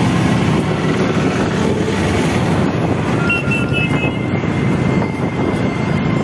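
Steady road noise from riding a two-wheeler in city traffic: the bike's engine and wind rush with other vehicles around. From about three seconds in, a few short high beeps and a held high tone sound over it.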